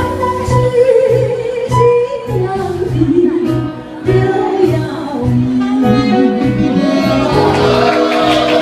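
Song accompaniment with a steady beat and a melody line over it, played loud.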